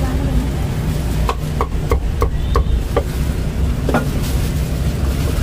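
Meat cleaver chopping roasted red pork on a round wooden chopping block: about seven sharp knocks, roughly three a second, starting just over a second in, with a last knock near four seconds.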